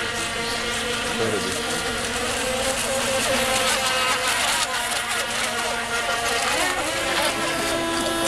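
Several small electric radio-controlled racing boats running at speed, their motors giving overlapping steady whines at different pitches that shift a little as the boats pass and turn.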